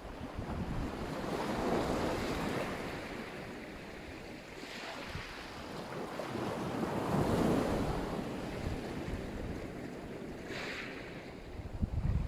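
Black Sea surf: waves washing in and drawing back in slow swells, one peaking about two seconds in and a bigger one about seven seconds in. Wind buffets the microphone with low rumbles near the end.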